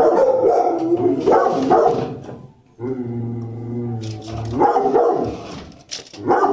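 Shelter dogs barking loudly, several calls overlapping almost without a break.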